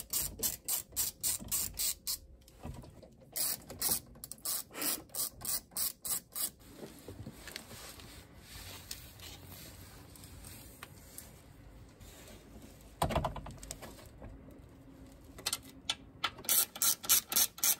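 Hand socket ratchet clicking in quick, even runs of about four to five clicks a second as a bolt is turned, pausing for several seconds in the middle. One louder knock about thirteen seconds in.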